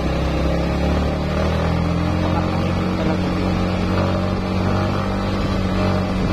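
Motorcycle engine running steadily while riding, its pitch shifting a little partway through.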